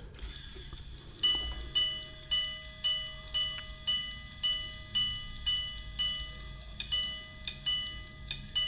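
Quarter-repeater pocket watch chiming the time on its steel gongs, its hammers striking about twice a second. Twelve single strikes sound the hour, then three quick double strikes sound the three quarters, for a quarter to one. Each strike leaves a bright ringing tone, over the faint whir of the repeater train.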